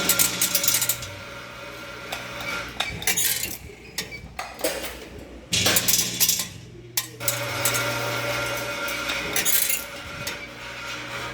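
Automatic vibratory-feed weighing machine dosing small portions of dried lotus seeds: the feeder's low hum switches on and off in spells of a few seconds while the hard seeds rattle and clink on the metal trays and hoppers.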